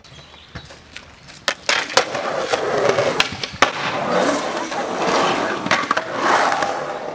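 Skateboard wheels rolling on a concrete skatepark ramp, the rolling swelling and fading as the skater rides the transition. There are several sharp clacks in the first two seconds and one loud clack a little past three and a half seconds. The sound cuts off abruptly at the end.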